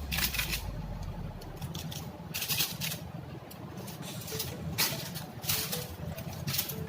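Kitchen handling noises: several short scraping or rustling sounds a second or two apart, over a steady low hum.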